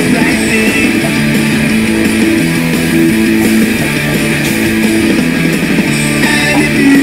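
Punk rock music with strummed electric guitar playing steadily, chords changing about every second.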